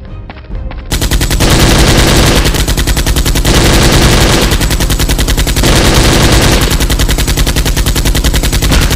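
Automatic gunfire sound effect, a rapid unbroken string of shots that starts about a second in, dubbed over Nerf blaster play in place of the blaster's own sound.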